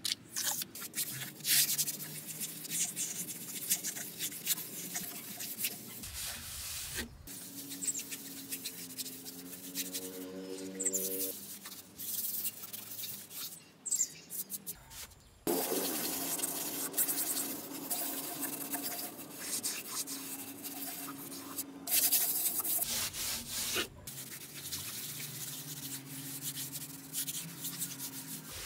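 Trowel and gloved hand scraping and rubbing wet cement render onto small mortar walls in repeated gritty strokes, with a few breaks where the scraping stops.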